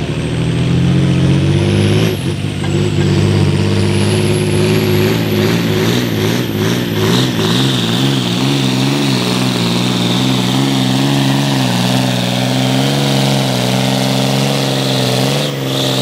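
A John Deere pulling tractor's diesel engine runs at full throttle under heavy load as it drags a weight-transfer sled. A high whine climbs in pitch over the first several seconds, and the engine note wavers in the middle of the pull.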